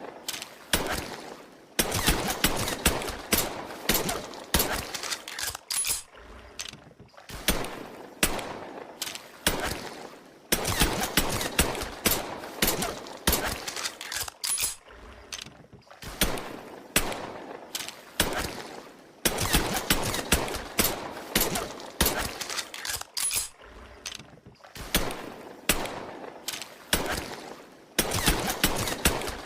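Colt M1911 pistol sound effects: runs of sharp shots and metallic clicks of the action, in clusters a few seconds long with short gaps between them.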